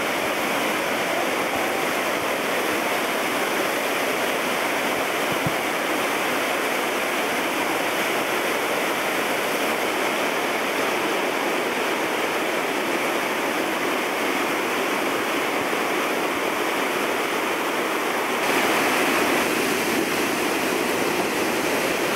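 Wildcat River in flood pouring over Jackson Falls: a steady, loud rush of white water, swollen by 6–12 inches of storm rain. It steps up in level about three-quarters of the way through.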